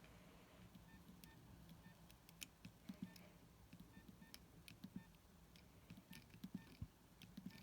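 Faint keypad presses on a Nokia 6230i mobile phone: small clicks, each with a short quiet key beep, about one or two a second as the buttons are pressed in turn.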